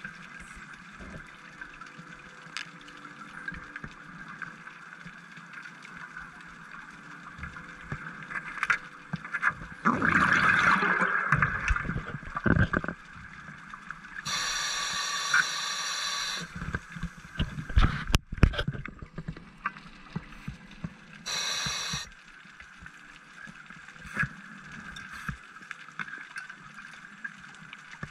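Scuba diver breathing underwater, heard at close range: gurgling exhaust bubbles, then a hissing regulator inhalation with a whistling edge lasting about two seconds, another gush of bubbles, and a shorter inhalation near the end, over a steady underwater hiss.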